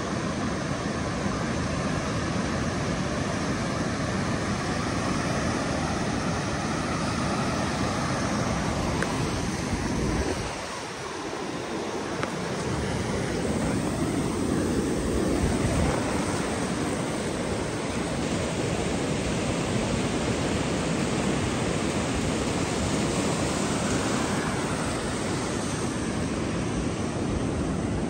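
Pacific Ocean surf breaking and washing up a sandy beach, a steady rushing wash that dips briefly about ten seconds in.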